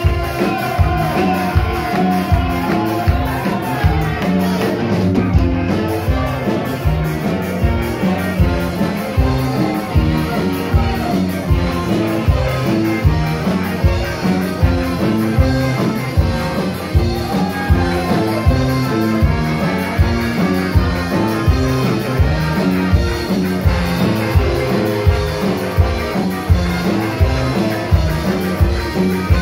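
Live rock band with electric guitars, drums and a horn section playing a song, with a steady beat of about two a second and a voice singing over it, heard from among the audience.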